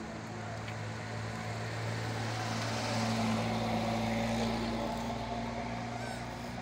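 A motor engine hums steadily at a low pitch. It grows louder about two seconds in and fades again near the end.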